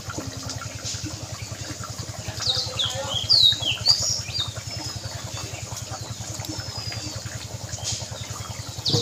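Birds chirping in short, falling high-pitched calls, in clusters about a third of the way in and again near the end, over a steady low hum with a fast even pulse.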